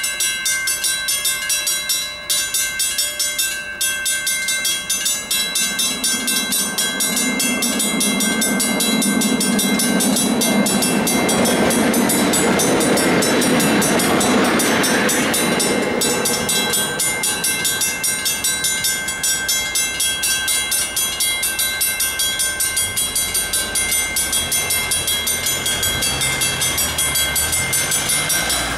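Level-crossing bell ringing in rapid, even strokes while an ALe 054 electric railcar passes over the crossing. The train noise swells and fades over about ten seconds, loudest about midway. Near the end a low engine rumble comes in as waiting cars move off.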